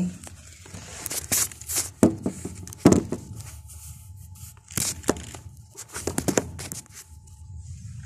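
Irregular rustling, crinkling and clicking handling sounds, in scattered clusters.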